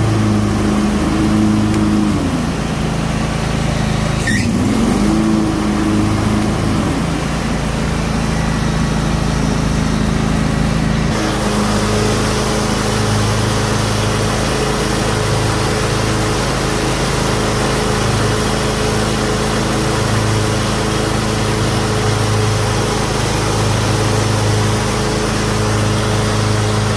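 John Deere X320 riding mower's 22 hp Kawasaki two-cylinder engine running, tested with a newly fitted deck belt. The pitch rises and falls twice in the first few seconds, and the sound changes about eleven seconds in, then runs on steadily with a pulsing low hum.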